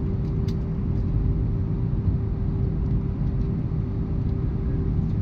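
Cabin noise of an Airbus A319 on the ground before takeoff: its IAE V2500 engines running at low power, a steady low rumble with a constant hum.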